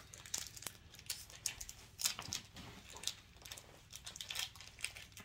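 Cadbury Five Star chocolate bar wrapper crinkling in the hands as it is torn open: a run of short, irregular crackles.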